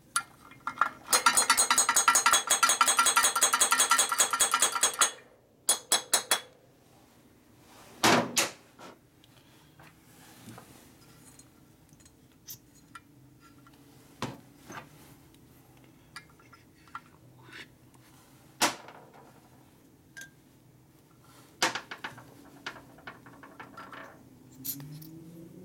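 Hand tools working on a motorcycle engine's cylinders: a few seconds of rapid, loud metallic rattling with a ringing edge, then scattered single taps and clinks of metal on metal.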